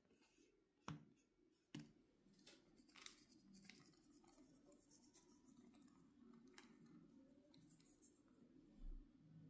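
Near silence with faint handling sounds: two soft taps early, then light scattered ticks as rolled oats are sprinkled by hand onto bread dough in a metal loaf pan, and a low bump near the end.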